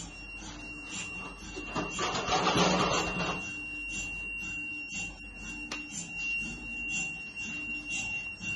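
Uncovered MRI scanner equipment humming with a steady high whine and a soft pulse repeating about twice a second. A louder, noisier stretch comes about two seconds in.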